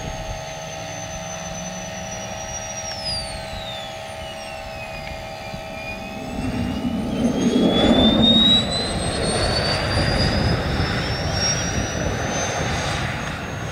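Model jet's turbine engine dying and auto-restarting on the runway: its high whine falls steadily as it runs down, then climbs back up as the engine restarts. A louder rushing noise comes about halfway through.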